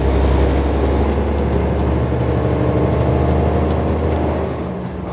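Semi truck's diesel engine pulling up a highway on-ramp, heard from inside the cab: a steady low drone with road noise that dips briefly near the end.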